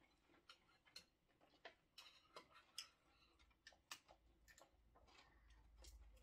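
Kitchen scissors snipping through king crab shell, heard as faint, irregular sharp clicks and snips.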